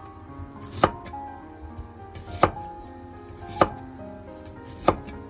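Kitchen knife slicing through a white radish (daikon) and hitting the cutting board: four separate chops, roughly one every second and a half, over soft background music.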